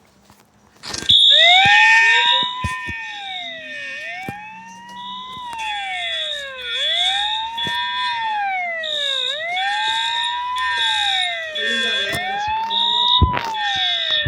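Fire alarm going off suddenly about a second in: a wailing siren that rises and falls about every two and a half seconds, with a high beeping tone pulsing over it.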